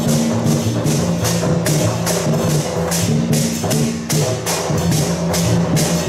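Loud temple-procession music: sharp percussion strikes, about two to three a second, over a held melody that steps from note to note.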